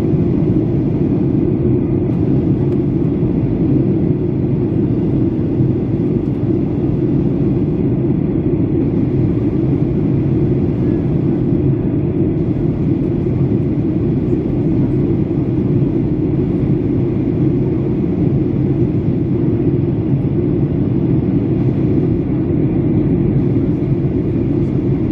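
Steady low rumble of cabin noise inside a Boeing 737-800 on approach to landing, from airflow over the airframe and its CFM56-7B turbofan engines, unchanging throughout.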